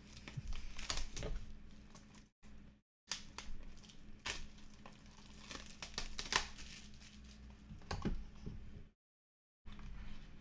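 Plastic shrink-wrap on a sealed trading-card box being slit with a small knife and torn off, with crinkling and sharp clicks of the cardboard box being handled and opened. The sound drops out completely twice for under a second.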